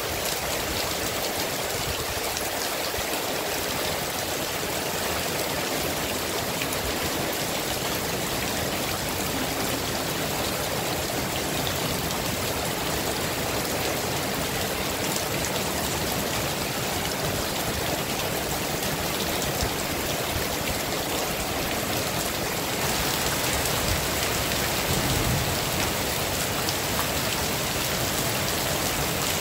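Heavy rain falling steadily: a dense hiss studded with many individual drop hits, growing a little louder about three-quarters of the way through.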